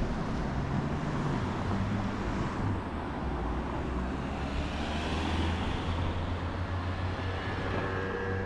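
City street traffic: a steady low rumble of engines and tyres, with a van driving past about halfway through. A faint steady whine sets in near the end.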